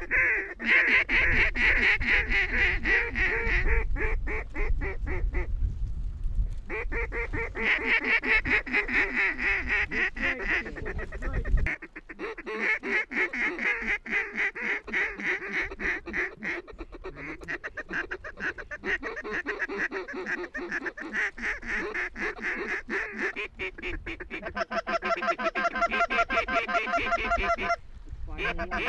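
Rapid, almost unbroken mallard quacking and chatter. A low rumble runs under the first twelve seconds or so and stops abruptly.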